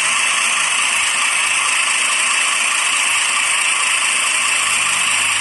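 Recorded generator engine sound played back through a small speaker driven by an MP3 TF-card module: a steady, hissy running sound with little bass.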